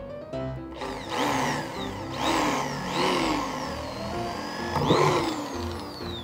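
Electric drill with a 4 mm bit boring screw holes through an acrylic sheet, its motor whine rising and then falling away several times as the trigger is squeezed and released.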